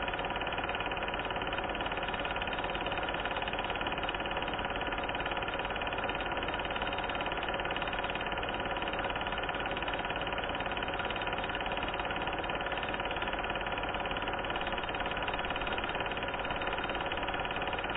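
Steady mechanical whirring drone of a cine film projector running, with a constant hum of fixed tones that does not change through the picture cuts.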